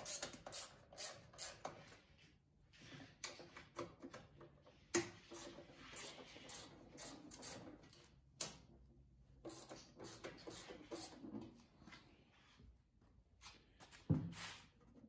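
Scattered light clicks, knocks and rustles of hands handling a tipped-up two-stage snowblower, with a sharper knock about five seconds in and a louder thump near the end.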